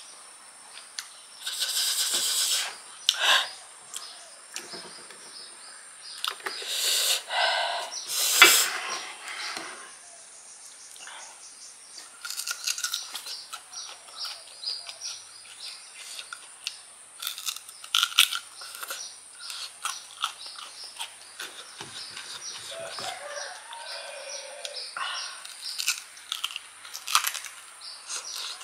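Close-up mouth sounds of eating crisp, peeled ambarella (kedondong) fruit: several loud, breathy sucks and slurps early on, then rapid crunching and chewing clicks through the rest.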